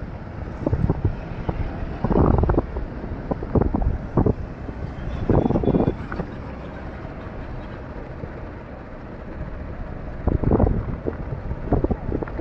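Road traffic passing on a highway: trucks, buses and motorbikes, a steady rumble. Wind buffets the phone's microphone in loud gusts several times.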